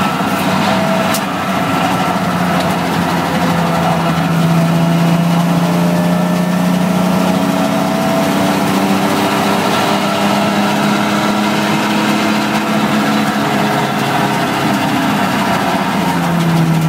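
Drift car's engine heard from inside the cabin, running steadily at moderate revs, its pitch drifting slowly up and down as the car drives along the track.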